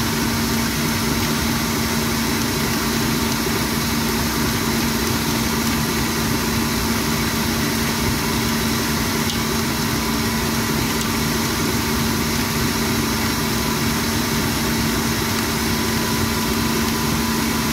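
Kenwood stand mixer motor running steadily at speed 6, kneading a wet, 100%-hydration sourdough starter in its steel bowl; a constant motor drone with one unchanging pitch.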